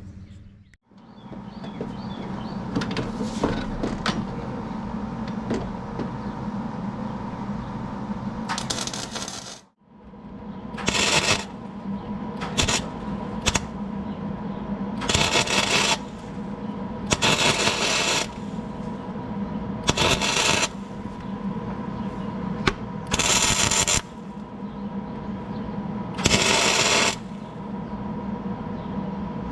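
Flux-core wire-feed welder arcing in short bursts of about half a second to a second, each a harsh crackle, as weld is built up on the stub of a snapped serpentine belt tensioner bolt. A steady hum runs between the bursts, and there are a few handling clicks in the first seconds.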